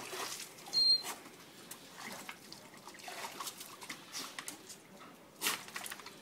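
Two dogs splashing and mouthing at water in a plastic paddling pool: scattered short splashes, the loudest about a second in and another near the end.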